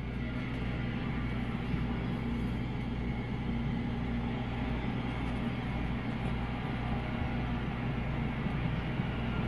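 Steady low rumbling drone with an even hiss behind it, a horror film soundtrack's ambience.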